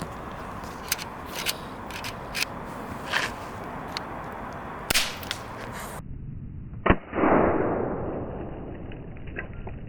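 Scattered small clicks and taps of handling, then about seven seconds in a single sharp snap of a 3D-printed single-shot pistol firing a plastic PLA bullet. A rushing noise follows and fades over a couple of seconds.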